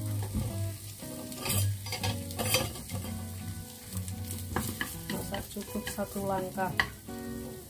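Carrots and shallots sizzling in a small rectangular frying pan as they are stir-fried with wooden chopsticks, which click against the pan again and again.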